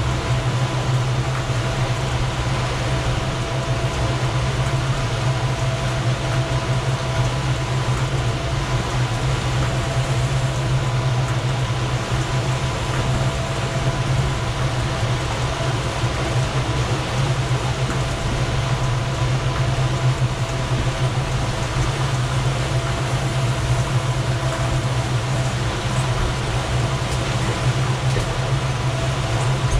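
Twin outboard motors running steadily while trolling: a constant low drone with a faint steady whine, over the rush of wind and wake water.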